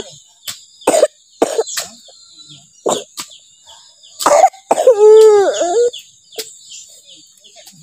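A small child with a cough coughing in several short bursts. A little past halfway comes the loudest sound, a drawn-out pitched call about a second long.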